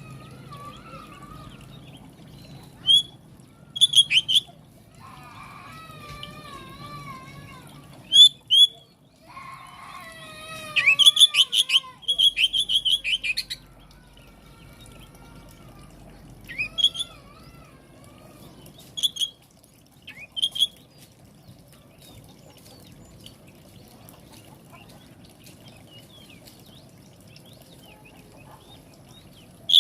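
Magpie-robin (kacer) singing: loud, sharp whistled notes in quick clusters, with wavering warbled phrases in between.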